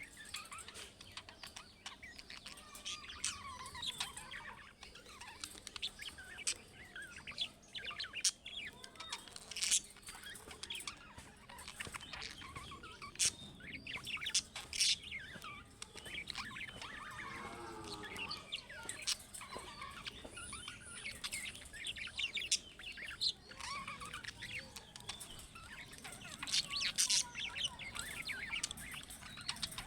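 Budgerigars chirping and warbling: a busy, continuous stream of short high chirps and chatter.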